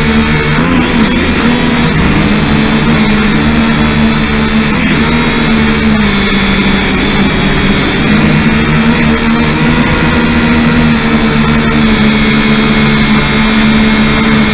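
Kyosho Quatrox Eye quadcopter's motors and propellers buzzing steadily, picked up close by its own onboard camera, the pitch dipping and rising a little a few times as it manoeuvres.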